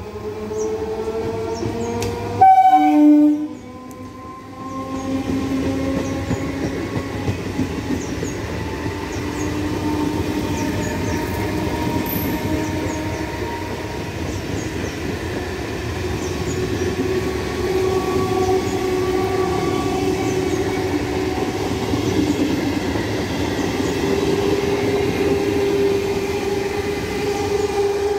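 A 12-coach conventional electric multiple unit (EMU) local train passing at speed. Its horn sounds once, loud and brief, about two and a half seconds in. Then the coaches run by with a steady rumble and a whine from the traction motors.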